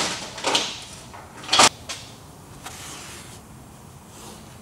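Metal clunks and scrapes from handling rear differential parts at the open axle housing. Three sharp knocks come in the first two seconds, the loudest about one and a half seconds in, then fainter scraping.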